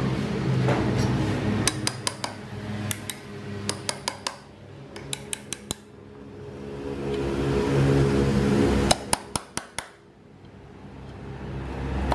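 Small hammer tapping a steel blade and rod down into a wooden plank, in quick clusters of sharp metallic taps. Underneath, a low droning hum swells up and fades away twice.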